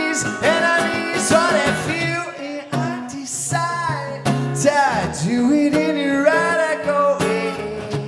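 A live song: a man singing, with guitar accompaniment.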